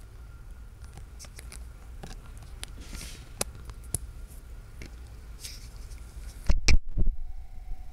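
Handling noise: scattered light clicks and taps as hands work the small metal clasp and hinges of a wooden box, with a few louder bumps near the end.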